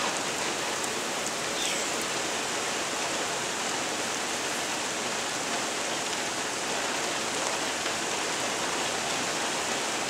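Steady rain falling, an even hiss of water with no break.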